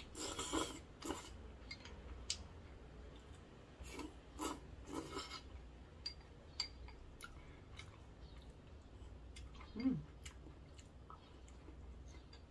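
Kalguksu noodles slurped in short bursts near the start and again about four to five seconds in, with soft chewing and light clicks of wooden chopsticks against a bowl. A short falling hum comes near the end.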